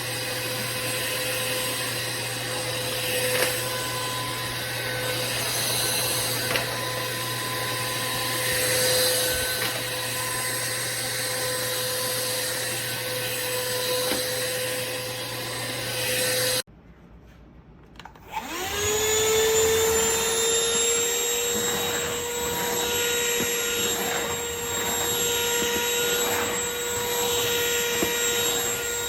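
Cordless stick vacuum motor running with a steady whine, which cuts out suddenly a little past halfway and starts again about a second and a half later, its whine rising and settling back to the same pitch.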